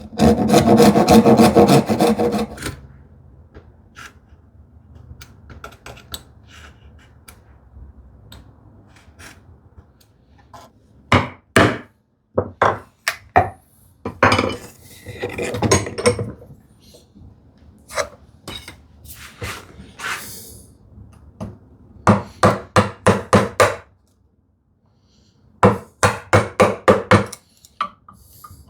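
Hand saw cutting dovetails in wood in runs of quick back-and-forth strokes. The loudest run is at the start, and shorter runs with pauses follow.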